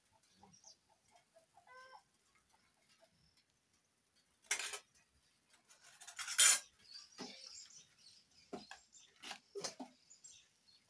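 A metal spoon scraping and clinking against metal cooking pots and bowls as food is dished out: a handful of short, sharp scrapes, the loudest about six seconds in.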